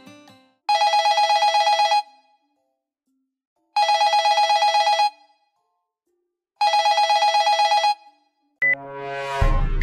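Desk telephone ringing with a trilling electronic ring: three rings, each just over a second long, about three seconds apart. A different rising sound effect with a low rumble starts just before the end.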